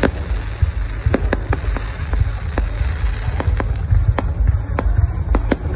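Aerial fireworks bursting: a rapid, irregular string of sharp bangs over a continuous low rumble.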